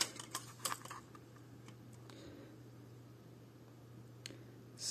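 A few light clicks and taps from handling a tape measure and a small plastic bike computer, clustered in the first second with one more near the end, over a faint steady hum.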